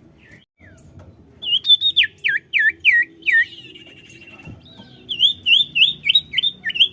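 Common iora singing: a run of about five sharp, hooked whistled notes, then a long level whistle, then a faster run of about eight repeated notes.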